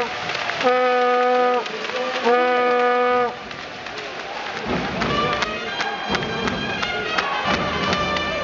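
A horn sounds two long, steady blasts of about a second each at one unchanging pitch, then the basketball-arena crowd carries on with chatter and sharp claps.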